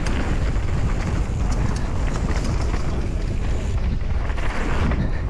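Wind rushing over the microphone as a mountain bike descends a dirt trail, with tyre noise on the ground and a few small clicks and rattles from the bike.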